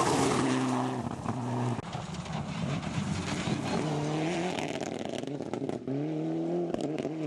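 Mitsubishi Lancer Evolution rally cars' turbocharged four-cylinder engines revving hard, the note falling on lifts and gear changes and climbing again several times, as the cars slide past on loose gravel. Tyres crunch over the gravel, with sharp clicks and cracks in the second half.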